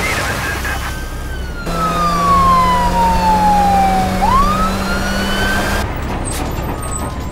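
Police car siren wailing over a car engine running. About a second and a half in, the siren slides down in one long falling tone, then sweeps sharply back up, with a steady engine hum beneath that stops near the end.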